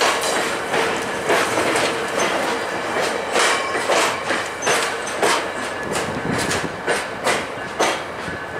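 Wheels of a departing VIA Rail passenger train's HEP-II coaches clacking over rail joints, a sharp clack about every half second to second. The clacks grow slightly fainter as the last coach passes and pulls away.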